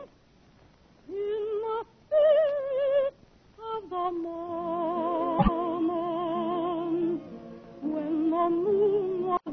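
A woman's trained soprano voice singing a slow ballad in sung phrases with short pauses between them, the held notes carrying a wide vibrato. A single sharp click comes about five and a half seconds in. The old broadcast recording sounds narrow and dull, with no highs.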